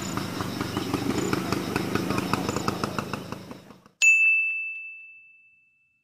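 Outdoor background noise with rapid faint ticking and a few short high chirps fades out over the first three and a half seconds. About four seconds in, a single bright ding rings out and dies away over about a second and a half.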